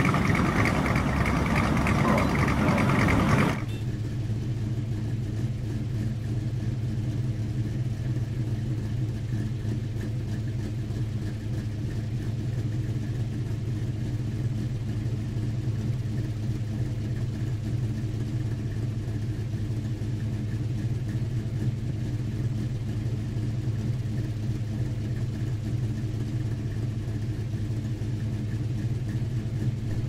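Car engines as cars drive in for the first few seconds, then a sudden change to a steady, unchanging engine hum.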